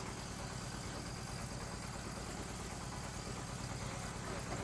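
Floating fish-feed pellet extruder machine running steadily with a low, even hum.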